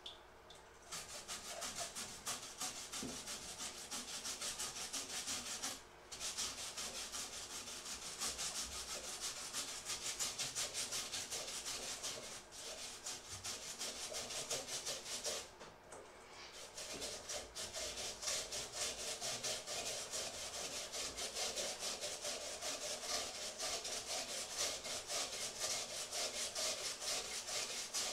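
Peeled potato rubbed back and forth against a perforated cylindrical metal grater: a fast, continuous rasping with short pauses about six, twelve and sixteen seconds in.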